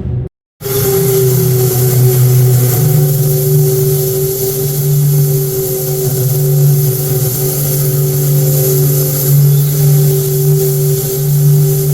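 Ocean liner's steam whistle sounding one long, deep blast, several steady low notes together over a hiss of steam, starting about half a second in after a brief gap and held unbroken.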